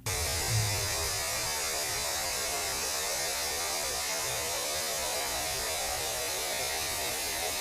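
Analog-horror sound effect of steady static hiss with a low hum under it, cutting in suddenly and holding at an even level.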